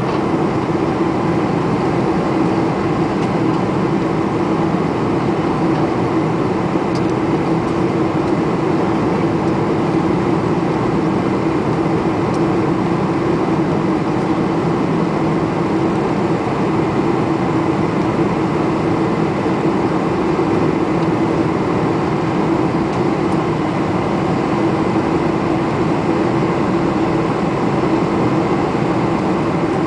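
Steady cabin noise inside a Boeing 747-400 airliner in flight: engine and airflow rush with a constant drone, unchanging throughout.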